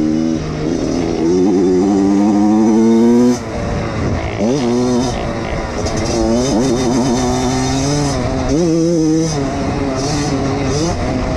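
Koshine XN 105 pit bike engine under way, its revs climbing and then falling away several times as the throttle is opened and eased off.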